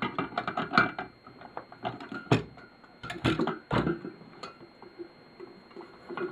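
Pliers and loose brass lamp fittings clicking and knocking as a brass makeup lamp is taken apart: a quick run of small metal clicks with a few louder knocks over the first four seconds, then only faint handling clicks.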